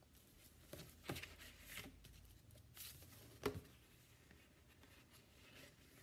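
Faint rustling and a few light clicks of a heavy paper card being handled as a length of string is pushed through a hole poked in it, the sharpest click about three and a half seconds in.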